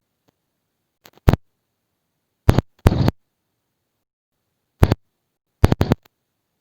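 A handful of short, sharp clicks and knocks with dead silence between them; one, near the middle, lasts a little longer, like a scrape.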